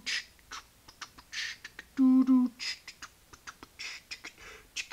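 A man making vocal sound effects with his mouth. Breathy whooshes come about every second and a half, and a hummed two-note 'da-dun' comes about two seconds in, over light clicks from handling.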